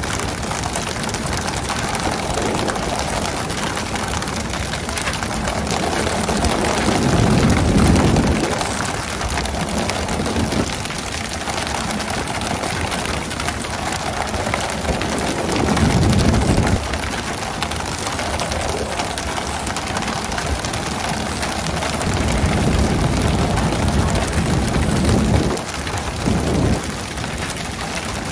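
Steady rushing hiss of water spray and splashing sea beside a pole-and-line tuna boat, swelling louder with a deep rumble about eight seconds in, again about halfway, and several times near the end.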